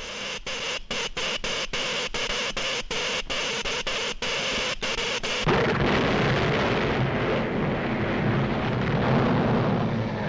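Animated-film sound effects: an electric cable sparking with a crackling, sputtering hiss that keeps cutting in and out. About five and a half seconds in, a loud explosion breaks in, followed by steady rumbling of collapsing buildings and falling debris.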